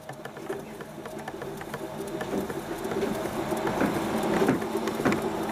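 Hotpoint Ultima WT960 washing machine's motor turning the drum through a newly fitted drive belt: a machine hum with several steady tones and a scatter of light clicks and rattles, growing steadily louder.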